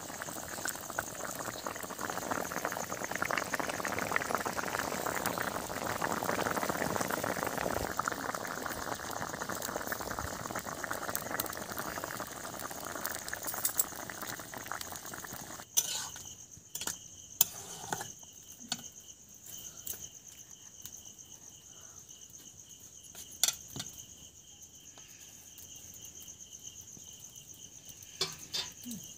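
Curry bubbling at the boil in a kadai over a wood fire. About halfway through the bubbling cuts off abruptly and crickets chirp steadily, with a few sharp clicks.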